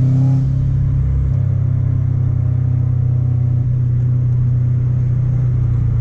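Subaru Impreza WRX STI's turbocharged flat-four engine heard from inside the cabin, a steady low drone at constant revs while driving.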